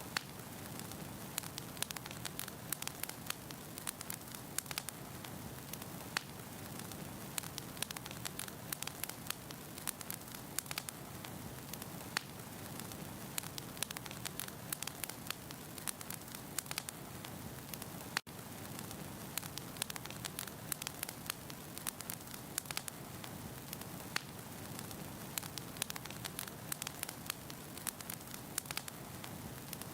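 Burning firewood in a fireplace crackling: a steady soft rush of flames with many sharp pops and snaps throughout, broken by a momentary dropout about two thirds of the way through.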